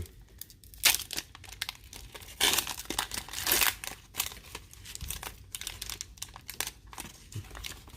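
Foil Pokémon booster pack wrapper crinkling and being torn open, with a sharp crackle about a second in and a longer stretch of crinkling and tearing near the middle, then faint rustles as the cards are slid out.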